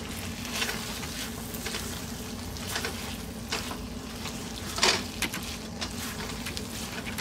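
Spatula stirring and scraping boiled chana dal as it fries in a non-stick wok, with a soft sizzle and a few short louder scrapes, the loudest about five seconds in. A steady low hum runs underneath.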